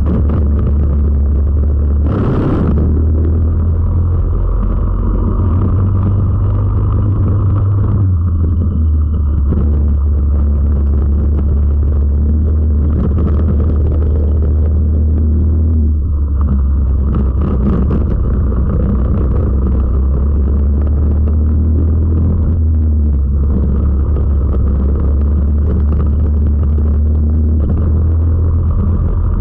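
Onboard sound of a four-stroke racing kart at speed: its single-cylinder engine runs hard with a loud, steady low drone that shifts only a little in pitch through the corners, with wind on the microphone. There is a short loud rush about two seconds in.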